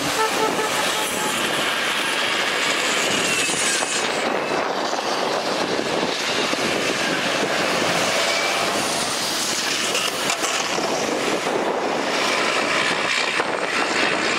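Diesel engines of double-decker buses running as they race past on the track, a steady, even rush of noise with no clear crash.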